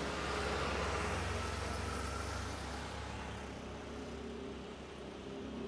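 Distant Airbus A330-300 jet engines running at taxi power: a steady rumble with a faint whine, the deep rumble easing off about three seconds in.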